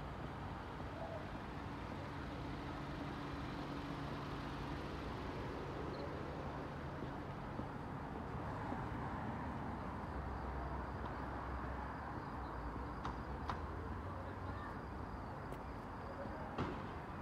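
Steady low rumble of road traffic, with a faint low engine hum in the first half and a few light clicks near the end.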